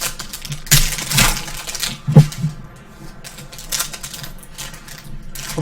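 Handling noise from trading card packs and cards on a table: a rustle of packaging about a second in, then scattered clicks and knocks.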